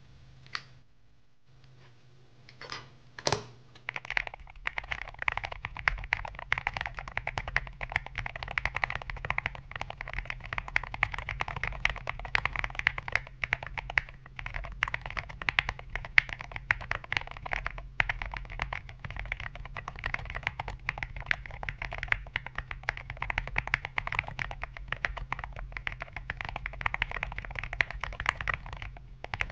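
Fast typing on a Neo 80 mechanical keyboard with linear Aqua King V3 switches on a polycarbonate plate under SA keycaps. A few single keystrokes come first, then a steady run of quick keypresses from about four seconds in.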